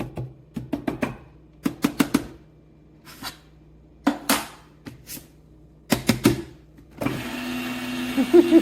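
Irregular clicks and knocks, then about seven seconds in the Fellow Opus conical burr coffee grinder's motor starts up and runs steadily. The grinder is misbehaving: the owner says it runs on its own if left plugged in.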